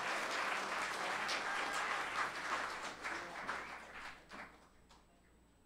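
Congregation applauding, the clapping thinning to scattered claps and dying away about four seconds in.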